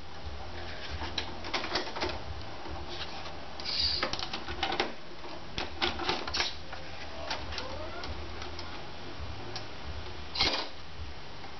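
A VHS video recorder's tape mechanism at work: a run of irregular clicks and clunks with short motor whirs, one rising about seven seconds in, over a low steady hum.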